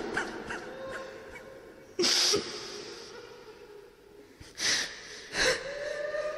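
A Quran reciter draws three quick breaths between recited phrases, about two seconds in and twice near the end, while the echo of his voice fades away at the start.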